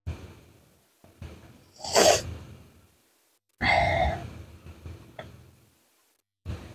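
Sharp gasping breaths and short, forceful exhales of someone working up to a sneeze, with a sudden sneeze-like burst about two seconds in and a loud voiced blast about a second and a half later.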